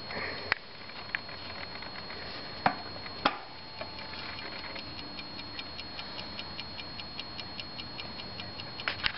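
A few sharp metallic clicks as the brass rear door of a Japy Frères French mantel clock is unlatched and swung open, the loudest about two and a half seconds in. The clock's movement is ticking in quick, even beats, plainest in the second half.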